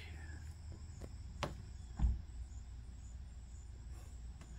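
Quiet room tone: a steady low hum and a faint thin high whine, with two light clicks about one and a half and two seconds in, the second with a soft low thump.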